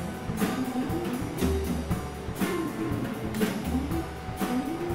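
Background music: guitar over a steady drum beat, about one beat a second.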